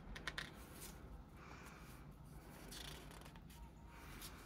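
Glossy pages of a hardcover photobook being handled and turned: a few small clicks at first, then two faint paper swishes.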